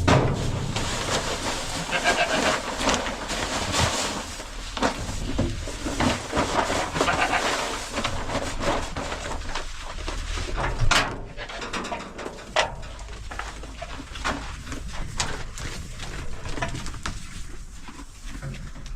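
Farm animals bleating in wavering calls, mixed with scattered knocks and clatter.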